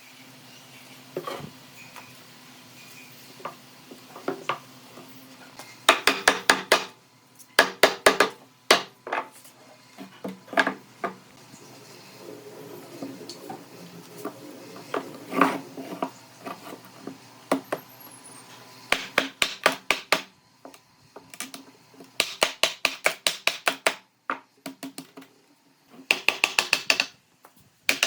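Rapid sharp tapping or knocking in short bursts of about a second, several strikes in each burst, with scattered single clicks between them.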